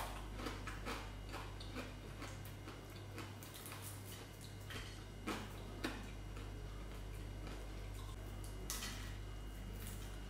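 Close-up eating sounds: scattered small clicks and smacks from chewing and from fingers picking apart fried fish, over a steady low hum.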